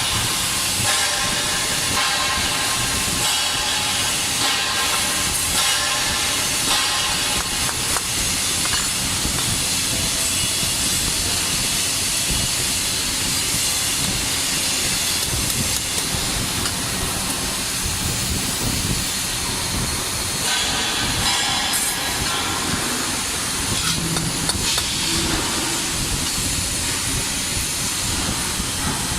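TIG welding arc from an Omega 350T welder, with a steady hiss.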